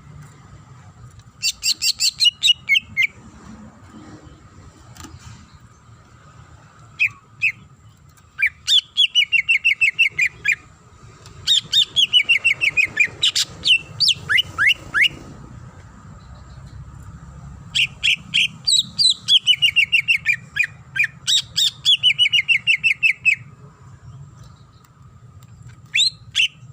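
Green leafbird (cucak ijo) singing: bursts of rapid, evenly repeated sweeping notes in phrases of one to four seconds, separated by short pauses, with a few isolated double notes.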